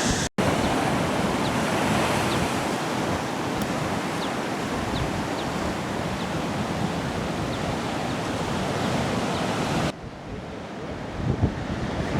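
Ocean surf and waves washing in a steady rush, with wind. The sound drops out for an instant just after the start. About ten seconds in it cuts to a quieter wash, with wind gusts buffeting the microphone near the end.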